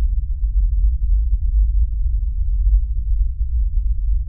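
Deep, steady low drone of a film soundtrack: a loud bass rumble with nothing in the higher pitches.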